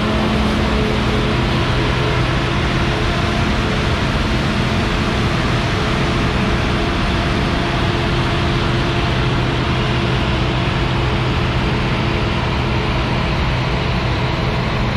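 Claas Lexion 430 combine harvester's engine and threshing machinery running steadily under load while harvesting rapeseed: a constant mechanical hum over a dense hiss. The highest part of the hiss dulls in the last few seconds as the machine moves off.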